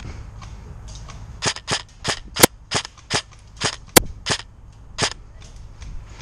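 Airsoft electric rifle fired in quick semi-automatic shots, about ten sharp snaps roughly three a second, over low wind rumble on the microphone.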